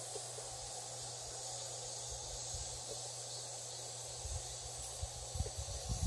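A steady high chorus of summer insects chirring in the countryside. A few low bumps hit the microphone in the last couple of seconds.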